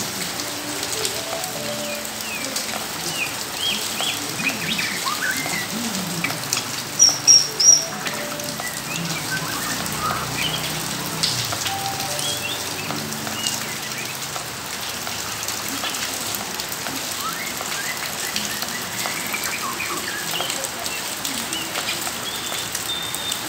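Steady rain falling on wet ground and cages, with caged songbirds chirping and whistling on and off. About seven seconds in, three loud, high whistled notes stand out.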